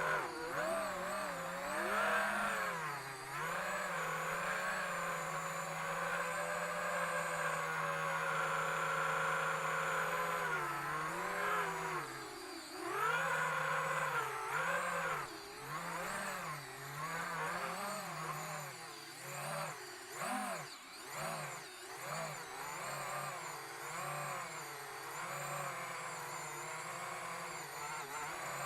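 Small brushless FPV drone motor whining as its throttle is worked. Its pitch holds steady for a while, then swings up and down again and again, in quicker, choppier swings in the second half. The motor is suspected of being faulty.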